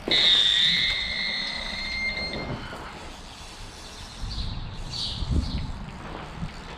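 Carp bite alarm sounding one continuous high tone for about two and a half seconds, starting suddenly: a fish is running with the bait. Birds chirp briefly later on.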